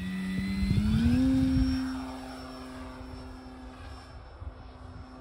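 Electric model-airplane motor and propeller of an FMS Pitts V2 RC biplane (Predator brushless motor on a 6S LiPo) going to full power for takeoff. The whine rises in pitch about a second in, then holds steady and fades as the plane climbs away.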